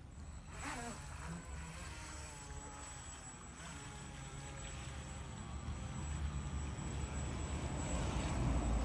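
Small jetboat approaching up a shallow creek: a steady high motor whine over a low rumble, growing louder over the last few seconds as the boat nears.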